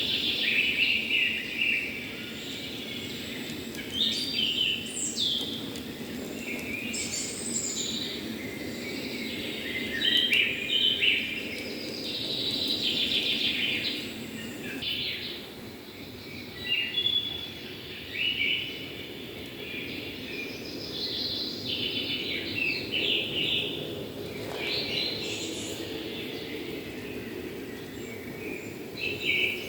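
Songbirds chirping and singing in many short calls and trills, over a steady low hum.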